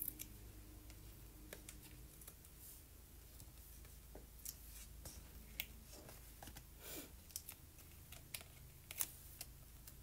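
Faint, scattered clicks and rustles of foam adhesive dimensionals being peeled off their backing sheet and pressed onto a cardstock panel, with paper being handled.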